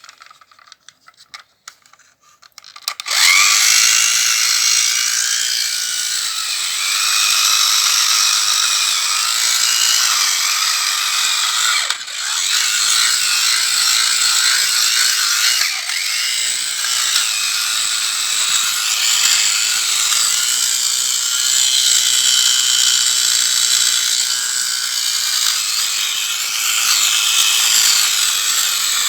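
Aerobatic airplane's engine running, a high buzz that starts suddenly about three seconds in and holds steady, its pitch sliding up and down now and then.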